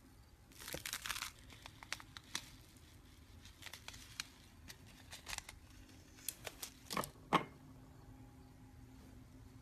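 Slime being squeezed and stretched by hand, giving off irregular crackling and popping clicks. There is a dense burst of crackles about half a second in and a few louder pops around seven seconds.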